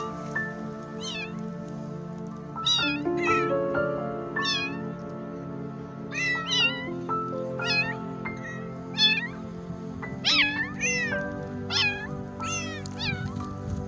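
Young kittens meowing over and over, about fifteen short high-pitched cries of roughly one a second, calls the uploader takes for hunger and crying for their mother. Background music with slow, stepped melodic notes plays under the meows.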